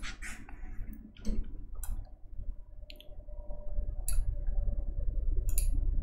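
Occasional clicks from a computer keyboard and mouse, about six spread out, over a low steady hum.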